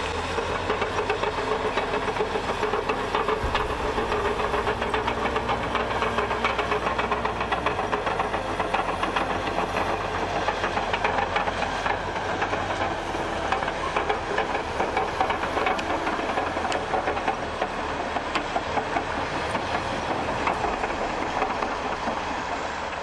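Bulldozer running: steady engine noise with a fast, dense metallic clatter.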